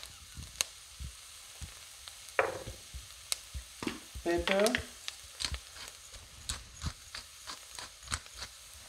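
Sliced onions sizzling gently in melted butter in an enamelled cast-iron stew pot: a soft steady hiss with scattered pops and clicks. The onions are translucent and are cooking on a moderate flame on their way to caramelizing.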